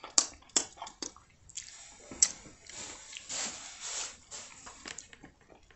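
Wet smacking and sucking as hot-wing sauce is licked off fingers, with a few quick smacks in the first second. This is followed by a couple of seconds of soft hissing noise.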